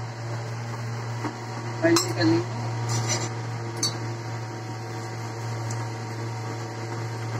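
A steel spoon clinking against a steel bowl a few times, about two, three and four seconds in, the first the loudest, over a steady low hum.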